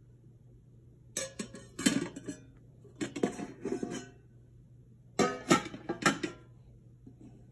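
Stainless steel plate covers clanking and ringing as they are lifted off plates and set down on each other and on the table, in three bursts of clatter about two seconds apart.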